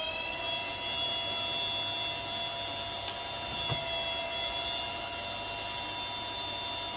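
Kaleido M10 Sniper Pro coffee roaster's cooling fan spinning up to cool the just-dropped beans. Its whine rises in pitch and settles into a steady tone within the first second, with a single light click about three seconds in.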